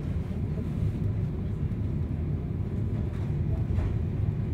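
Steady low rumble of a TER regional train running along the track, heard from inside the passenger car, with a couple of faint clicks from the rails about three seconds in.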